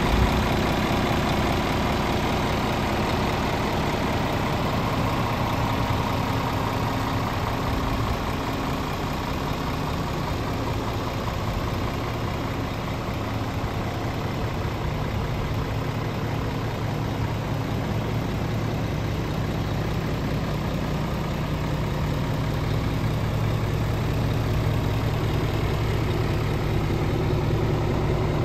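Scania R450 truck's 13-litre straight-six diesel idling steadily.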